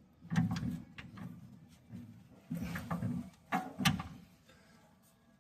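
Scattered clunks and knocks of hand tools on the machine's metal, about six separate hits, the last two louder, then quiet handling near the end.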